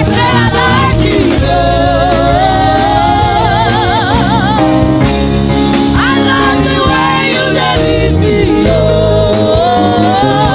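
Live gospel praise music: a singer holds long, wavering notes and slides between pitches over steady band accompaniment.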